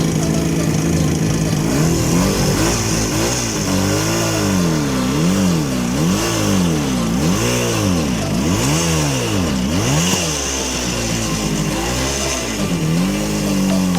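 Izh Jupiter 5 motorcycle's two-stroke twin engine running steadily, then revved up and down about seven times in quick succession before settling back to a steady run near the end.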